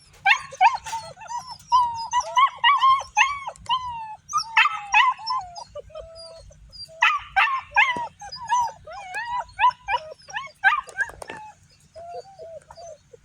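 A litter of puppies yipping and whining, many short high calls overlapping in quick succession, with a lull about six seconds in and fewer, quieter calls near the end.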